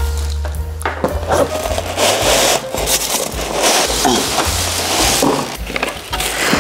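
Clear plastic bag wrapping rustling and crinkling in irregular bursts as a boxed kitchen appliance is unpacked, with packaging scraped and knocked about.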